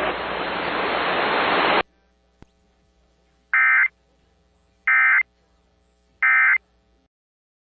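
A hiss of noise runs and cuts off abruptly just under two seconds in. It is followed by three short, identical warbling data bursts about a second apart: the SAME end-of-message code of an Emergency Alert System broadcast, marking the end of the alert.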